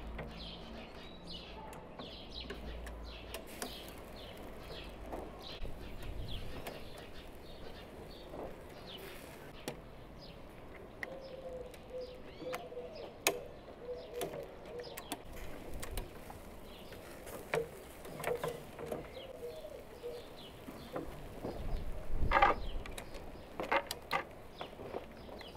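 Small birds chirping, with a dove cooing now and then. A few sharp clinks and knocks come through, the loudest near the end.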